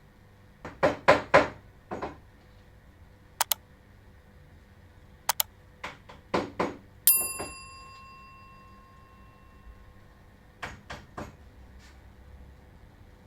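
Knocks and clicks of wooden parts and tools being handled while the router table's cabinet frame is put together, in clusters of sharp taps. About seven seconds in, a clang rings on a steady tone for roughly three seconds.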